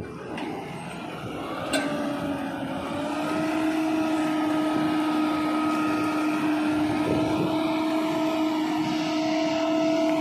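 A loaded tipper truck's diesel engine and hydraulic hoist raising the dump body to tip a load of mud. A short click, then about two seconds in a steady drone sets in and holds as the body lifts.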